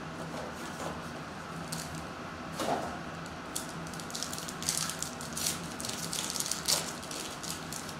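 Foil wrapper of a basketball trading-card pack crinkling and tearing as it is ripped open by hand. A few soft rustles come first, then a run of sharp crackles through the middle and later part.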